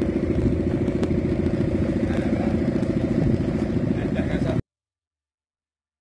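An engine idling steadily close by, with an even, rapid pulse; it cuts off suddenly about four and a half seconds in.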